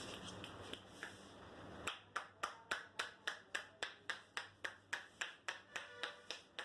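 Barber's hands clapping on the scalp in rhythmic percussive tapping, part of an Indian head massage. It starts about two seconds in, as sharp, even claps of about three to four a second, after a soft steady hiss.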